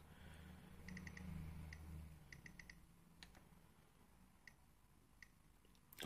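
Nest thermostat ticking softly as its outer ring is turned through the menus, one tick per step: a quick run of three, a single, a run of four, then a few single ticks.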